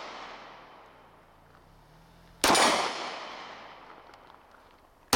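Mossberg MC2c 9mm pistol fired at a steady pace: the fading echo of one shot at the start, then a shot about two and a half seconds in and another right at the end. Each report has a long echo dying away over a second or two.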